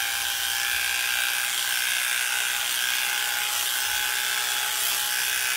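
Electric dog grooming clippers with a 10 blade running with a steady, high buzz while shaving a dog's coat short.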